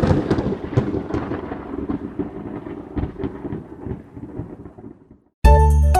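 A thunder-like rumble with many crackles, loud at the start and fading away over about five seconds. It cuts to silence, and bright music with bell-like notes starts about five and a half seconds in.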